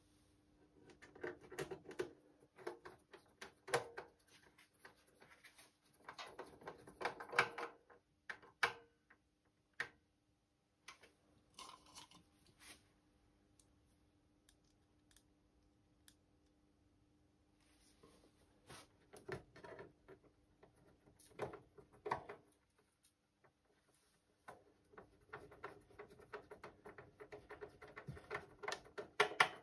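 Irregular clicks, taps and scrapes of hands and a screwdriver working on the opened metal chassis of a Revox B 285 receiver. They come in several clusters separated by quiet pauses.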